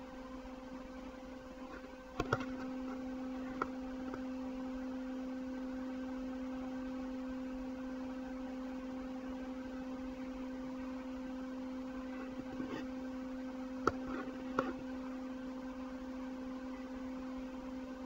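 Steady low hum, one tone with a fainter higher one above it, that gets a little louder about two seconds in, with a few faint clicks.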